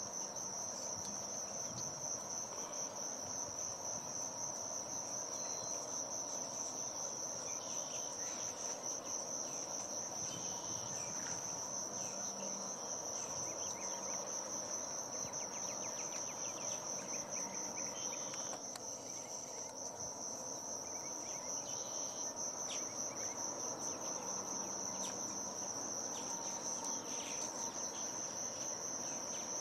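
Insects trilling steadily in one continuous high-pitched drone.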